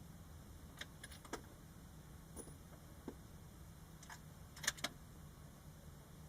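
A few light, sharp clicks and taps at irregular intervals, the loudest a quick double click about three-quarters of the way through, over a low steady rumble.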